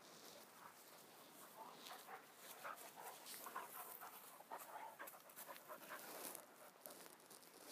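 A dog panting close by in quick, short breaths after rough play.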